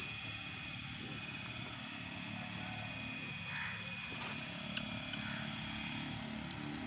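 Rural outdoor ambience: a steady low rumble under a thin, steady high-pitched whine, with two faint crow caws about three and a half and five seconds in.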